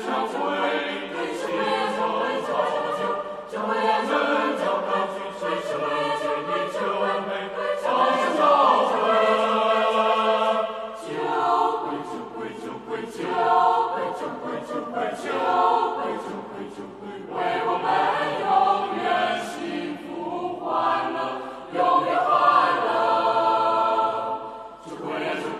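A school choir singing several parts together in phrases that swell and break off, with a short pause in the singing a little before the end.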